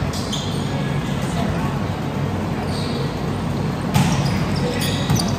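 Indoor volleyball scrimmage: a steady bed of overlapping chatter from players and onlookers, with a ball hit about four seconds in and a few sharp knocks near the end.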